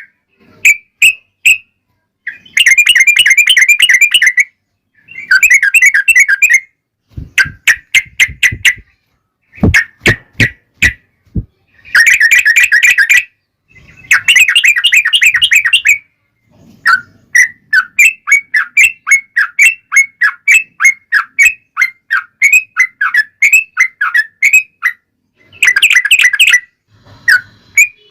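Yellow-vented bulbul (trucukan) singing in long rapid chattering bursts, alternating with runs of separate sharp whistled notes. A few clicks sound in the middle.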